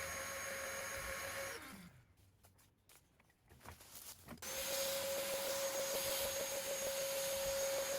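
Vacuum cleaner running with a steady whining hum, sucking stink bugs off a citrus tree through a long extension nozzle. About one and a half seconds in it dies away with a falling tone, leaving a few seconds of near quiet with a few small clicks, then starts up again abruptly and runs steadily.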